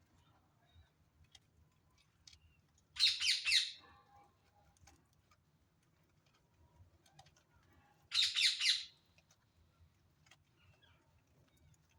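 A bird calling twice, each call a quick run of about four sharp, high notes lasting under a second, the second call about five seconds after the first.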